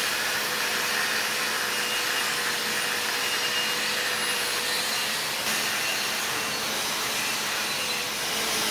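DeWalt angle grinder with a wire wheel brushing a steel weld coupon, running at a steady whine with the hiss of wire on metal. It is cleaning the downhill MIG root weld before the hot pass.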